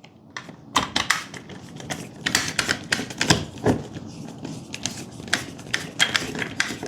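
Plastic and aluminium curtain-track parts clicking and clattering irregularly as they are handled and screwed together.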